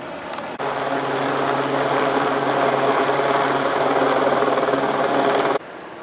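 Loud steady engine drone with a low hum. It comes in abruptly about half a second in and cuts off just as abruptly near the end, leaving a quieter steady rumble.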